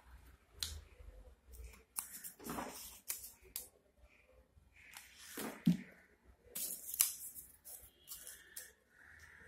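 Stiff paper leaves rustling and crinkling as they are handled and pressed onto a paper-craft cabbage, with scattered sharp taps and clicks.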